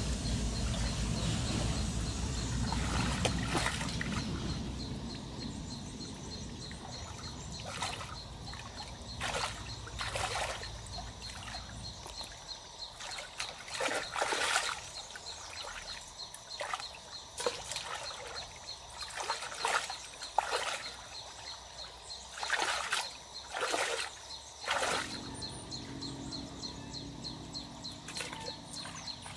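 Water splashing and sloshing in short irregular bursts, with trickling between them. A low rumble fades out in the first dozen seconds, and a thin steady high tone runs underneath.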